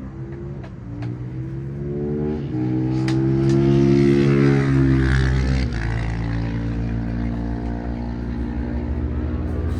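Motorcycle engine under way, revving up and dropping in pitch at gear changes about two and a half and six seconds in.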